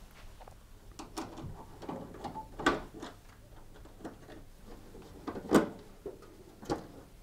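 A few scattered clicks and knocks of a screwdriver and hands working at a tumble dryer's control panel, as its top fixing screws are undone; the sharpest knock comes about five and a half seconds in.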